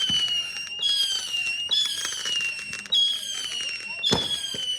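Fireworks finale: whistling fireworks going off one after another, a new shrill whistle about every second, each dropping slightly in pitch. Sharp crackling pops run underneath, and a heavy bang comes near the end.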